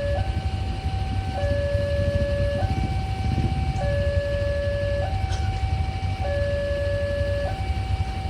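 Railway level crossing warning siren sounding a steady two-tone hi-lo alarm, a lower and a higher tone switching about every second and a quarter, over a constant low rumble.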